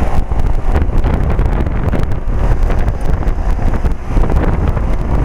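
Two central air-conditioner condensing units, a 1995 Lennox and a 2008 Payne, running together. Their compressor and fan noise is heavily overlaid by uneven wind buffeting on the microphone.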